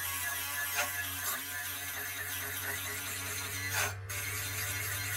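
Dremel rotary tool running with a grinding stone pressed against a battery terminal, grinding off corrosion. A steady motor whine with a few brief louder moments as the stone bites.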